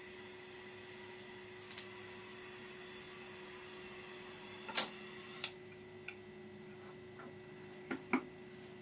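Gas brazing torch flame hissing steadily while hard solder is tacked onto a radiator's side post; the hiss cuts off sharply about five and a half seconds in, followed by a few light metallic clicks and knocks.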